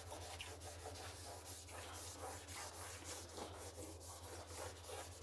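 Quick, repeated scrubbing strokes of a cleaning brush or sponge rubbing against a surface, about three or four strokes a second, over a low steady hum.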